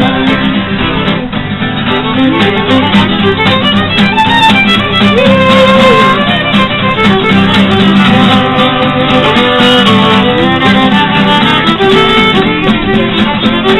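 Fiddle and a Cort acoustic guitar playing a folk tune together.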